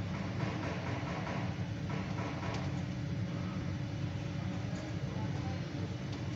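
Steady low rumble of a running vehicle, even in level throughout.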